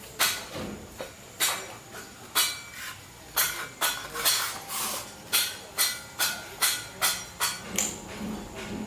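A series of sharp knocks, spaced irregularly at first, then coming about two a second from a few seconds in.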